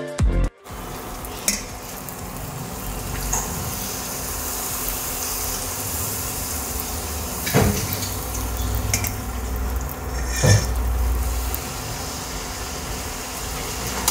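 Pooris deep-frying in hot oil in a steel kadai, a steady sizzle, with a slotted steel spoon clinking against the pan twice.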